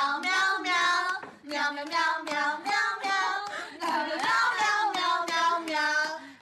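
A high-pitched voice singing in short phrases that rise and fall, with brief breaks between them.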